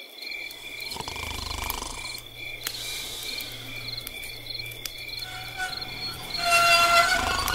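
Night ambience of crickets chirping in a steady pulsing rhythm, with a low steady hum underneath. About six and a half seconds in, a louder pitched sound with steady tones joins in.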